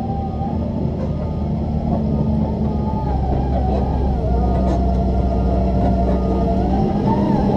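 Doosan DX140 excavator running: a steady engine drone with a whine on top that rises and falls as the machine works. It is running normally again after repair of its main hydraulic pump's damper and its travel gearbox.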